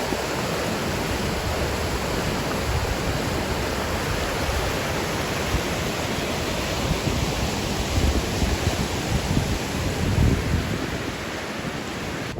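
Steady rush of storm-swollen water, with low gusts of wind buffeting the microphone.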